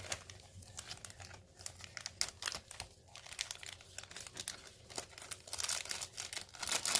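Packaging crinkling and rustling in the hands as the next jewelry item is taken out, a run of small crackles that grows busier and louder near the end.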